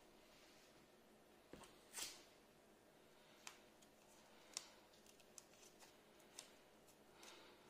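Faint handling of adhesive tape being wrapped and pressed onto the strand ends of a rope: a few sharp clicks and crackles, the loudest about two seconds in, and a short rustle near the end.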